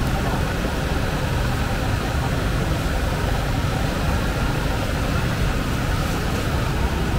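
Open-air night market ambience: a steady low rumble with faint crowd voices mixed in.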